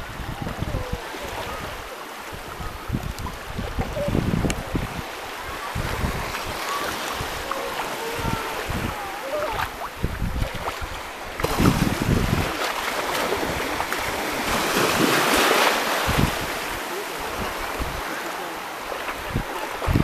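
Gentle surf washing in shallow sea water, with wind buffeting the microphone in low rumbling gusts and faint distant voices. The wash of water and wind grows louder for a few seconds past the middle.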